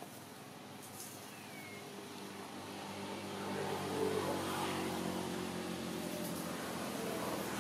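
A motor vehicle's engine running steadily out of sight and growing gradually louder from about two seconds in, as if approaching.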